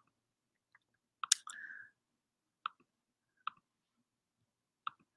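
Faint computer clicks, about five spaced roughly a second apart, the loudest about a second in and followed by a short faint tone.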